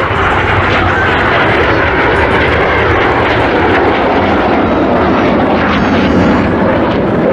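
Loud, steady jet noise from Red Arrows BAE Hawk T1 jets flying a display pass.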